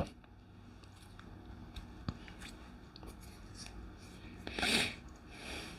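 Faint handling of a tarot deck's cards: a few small clicks, then a brief rustling swish a little after four and a half seconds in and a softer one near the end.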